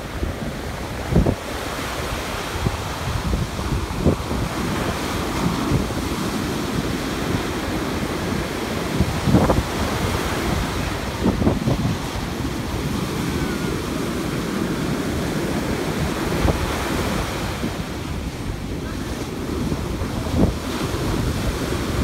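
Large surf waves breaking and white foam washing up the sand, a continuous rushing. Wind buffets the microphone now and then in brief low thumps.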